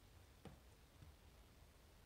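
Two faint clicks from a lock pick and tension wrench working the pins of an Assa Twin V-10 lock cylinder, about half a second in and again about a second in.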